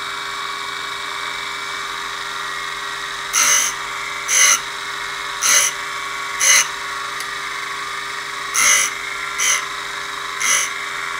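AR5 tool and cutter grinder running steadily while a 7/16-inch twist drill in a conical grinding jig is swung against the wheel. There are eight short grinding rasps, roughly a second apart, with a pause of about two seconds midway. It is a last light touch-up pass to grind out a small spot that the wheel had not yet reached.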